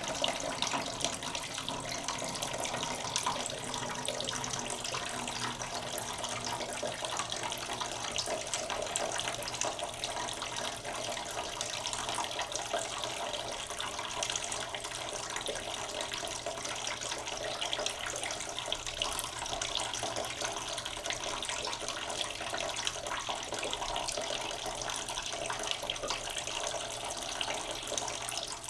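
Water running and splashing steadily, a continuous even rush with fine splashing texture.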